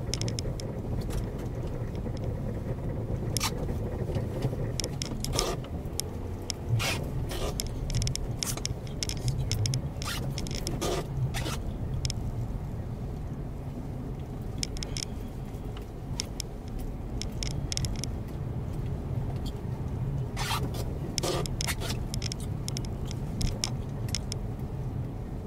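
A car driving on a snowy road, heard from inside the cabin: a steady low road-and-engine rumble with irregular short scrapes and ticks over it.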